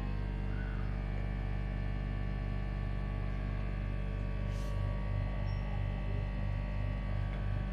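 Dust test chamber running with a steady electrical hum. About halfway through, a low rhythmic pulsing at roughly two beats a second comes in.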